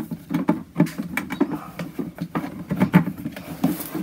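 Irregular plastic clicks, taps and rubbing as a hose is fed by hand through the plastic housing of a Hozelock 2-in-1 hose reel, with a short scrape near the end.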